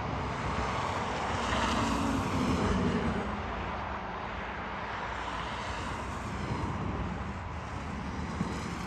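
A motor vehicle running, a steady engine and road noise that swells about one and a half seconds in and eases off a little after three seconds.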